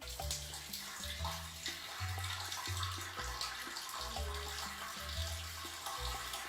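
Water running steadily from a tap, with the low, stepping notes of a background-music bass line underneath.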